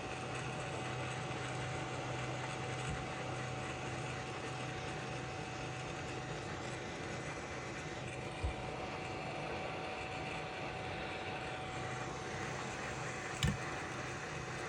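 Hot air rework station blowing steadily while heating a phone motherboard, a steady hiss of air with a faint thin whine. Two short knocks cut through it, about eight and a half seconds in and again, louder, near the end.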